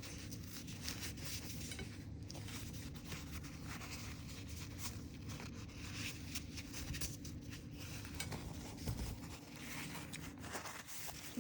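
Soft rustling and scratchy handling of a napkin being folded, with light taps, over a steady low room hum.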